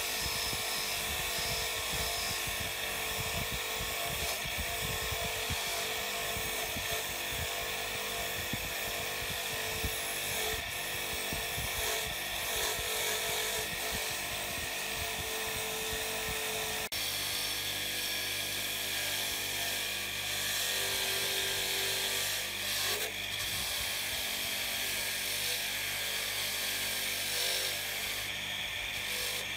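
Electric bench grinder with a wire brush wheel running steadily, its wire bristles scrubbing rust and old paint off the metal housing of a spring balance pressed against it.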